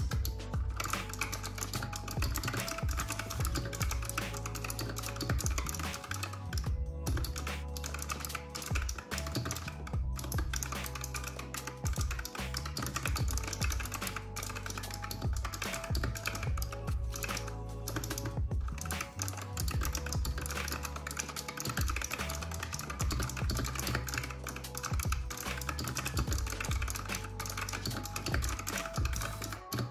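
Continuous fast typing on a compact backlit keyboard, a dense stream of key clicks, over background music.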